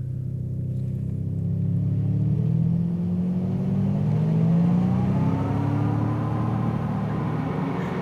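Artificial electric-car driving sound built from an electric-drill recording, played back while its simulated speed is raised: a layered mechanical hum whose pitch rises over the first few seconds and then levels off. It is an unfinished sound, which the designer doubts would yet meet the legal requirements for vehicle warning sounds.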